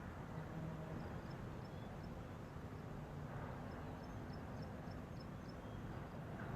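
Vietnamese 'train-whistle' kite flute (sáo còi tàu) sounding faint, low steady tones under heavy wind rumble on the microphone.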